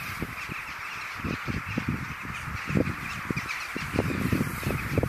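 A huge flock of rooks gathering to roost, cawing in a dense, continuous chorus of many overlapping calls. Irregular low rumbles on the microphone come and go underneath.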